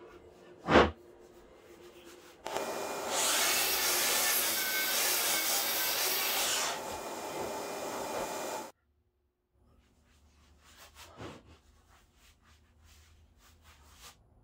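A sharp knock, then a Makita miter saw running and cutting through a wooden board for about six seconds, dropping in level partway before cutting off abruptly. Faint taps follow.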